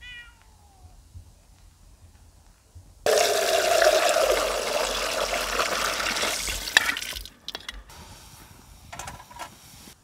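Water gushing from an outdoor standpipe tap through a hose into a bucket. It starts abruptly about three seconds in and cuts off about four seconds later, followed by a few clicks and knocks. A cat gives one short meow, falling in pitch, right at the start.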